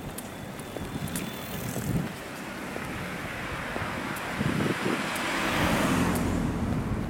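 A car drives past on the street, its engine and tyre noise swelling over a few seconds to a peak about six seconds in, then fading.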